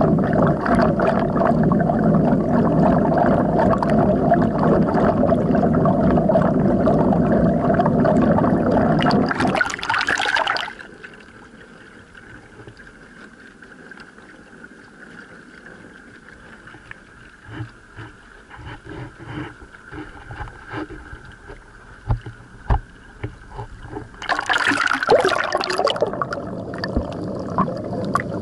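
Muffled rush of water streaming past a pedal boat's hull, heard through an underwater camera. About ten seconds in, a brief splash as the camera comes above the surface, then much quieter lapping with small knocks. Near the end another splash, and the loud underwater rush returns.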